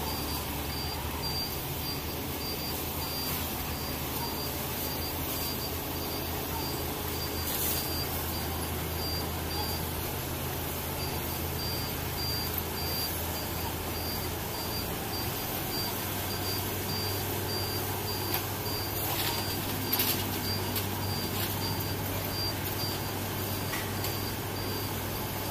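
Articulating boom lift's motion alarm beeping in a steady, evenly spaced high-pitched series while the boom moves, over the low steady hum of an engine running. A few sharp metallic knocks come in the second half.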